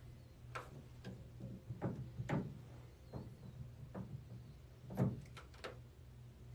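Scattered short clicks and light knocks over a steady low hum, with a sharper click and a quick cluster of them about five seconds in.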